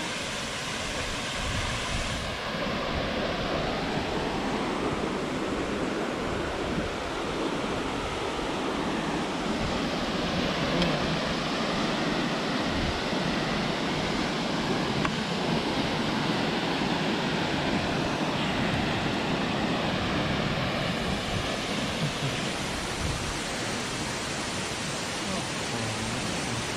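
Haew Narok waterfall's water rushing, a steady noise that grows a little louder through the middle and eases slightly near the end.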